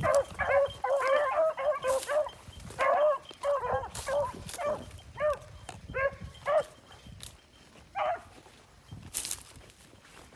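Pack of rabbit-hunting beagles baying on a rabbit's track: rapid overlapping barks at first, thinning to occasional single barks. A few sharp crunches come in between.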